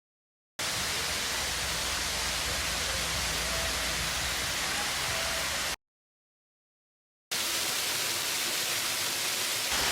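Steady rushing sound of water, in two stretches cut apart by about a second and a half of dead silence.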